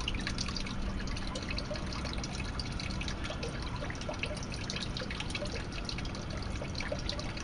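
Water trickling and dripping steadily into a koi pond, with many small drips and splashes.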